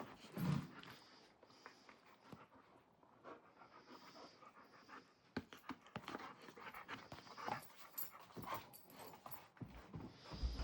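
A dog panting, with scattered light clicks and taps that come thicker in the second half.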